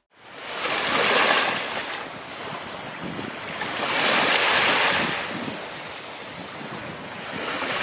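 A rushing noise like breaking surf, swelling and easing in slow waves about every three seconds.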